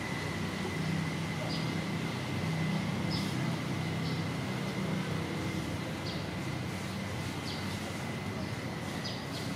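Steady low background rumble with a thin, steady high tone held throughout and short high chirps every second or so.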